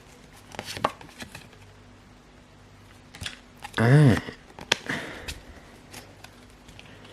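Light clicks, taps and rustles of Pokémon trading cards and a foil booster pack being handled, with a brief hum from the person about four seconds in.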